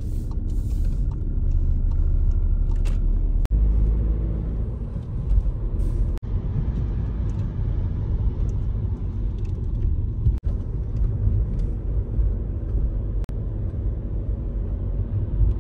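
Steady low rumble of a car driving, heard from inside the cabin, with several abrupt cuts between short clips.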